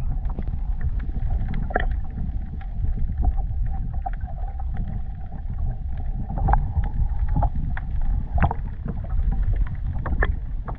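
Water heard through an underwater camera: a steady low rumble of moving water, a faint steady hum, and scattered sharp clicks.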